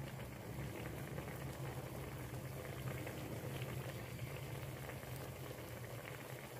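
Thai jungle curry (kaeng pa) simmering in a stainless steel wok: a steady bubbling with many small pops. A low steady hum runs underneath.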